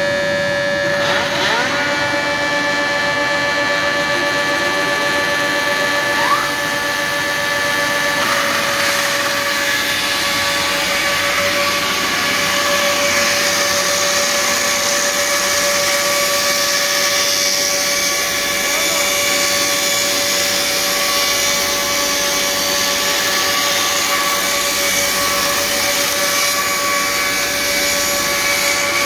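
Machinery running steadily with a constant hum: one strong steady tone and several fainter higher ones over a noisy hiss, with a single short click about six seconds in.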